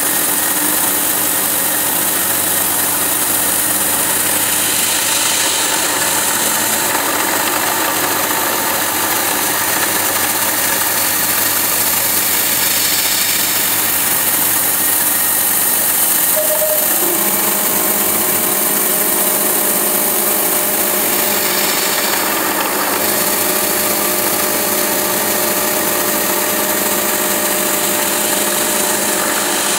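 MAHO MH700C CNC milling machine running, its end mill cutting steadily around a round metal workpiece, with continuous cutting noise and a steady hiss. About halfway through a new steady tone sets in as the cut changes.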